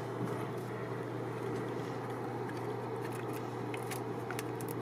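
A steady low mechanical hum, like a machine running in the background, with a few faint clicks near the end as a new air filter is pressed into its plastic housing.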